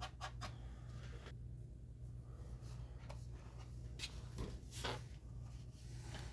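Faint light scratching of a paintbrush rubbing over a plastic model ship's hull, in a few short strokes in the first second and again around four to five seconds in, over a low steady hum.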